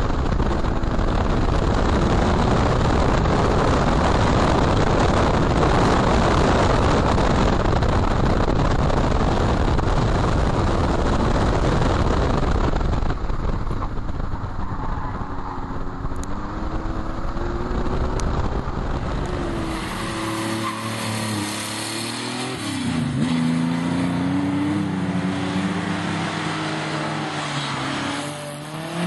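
Porsche 911's air-cooled flat-six running hard on a wet track, buried at first under a loud rush of tyre spray and wind on a wheel-mounted microphone. About halfway the rush eases, and the engine note comes through clearly, its pitch rising and falling as the car accelerates and shifts.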